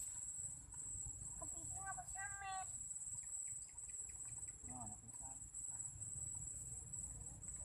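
A steady, high-pitched insect chorus, with a few short distant calls or voices over it around two seconds in and again near five seconds.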